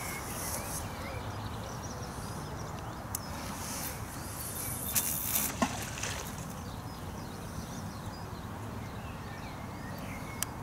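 Steady outdoor background noise at a lakeside, with a few light clicks and handling rustles, and a short cluster of louder clicks about five seconds in.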